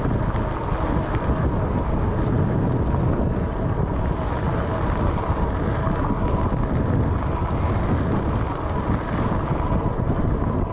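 Wind buffeting the microphone over the rolling noise of a Cyrusher Trax fat-tyre e-bike being ridden, with a faint steady whine.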